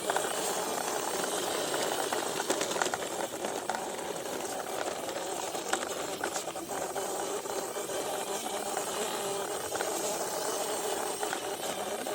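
Small electric motor of a homemade toy truck running steadily with a rattling hum and scattered clicks.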